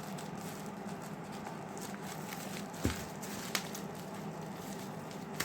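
Small knife cutting open bubble-wrap packaging: faint scraping with a few small clicks, and a short soft knock about three seconds in.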